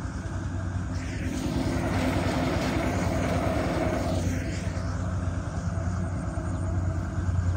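An engine running steadily, a low even drone that holds the same pitch throughout.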